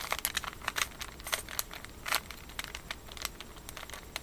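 Plastic Rubik's Cube layers being turned quickly by hand, giving irregular rapid clicks and scraping rattles; the cube has not been greased.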